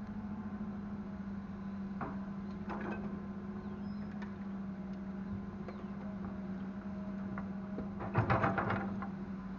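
Heavy diesel machinery engine running at a steady hum, with a few knocks and a burst of loud clattering about eight seconds in, typical of an excavator bucket working while it loads soil into a dump truck.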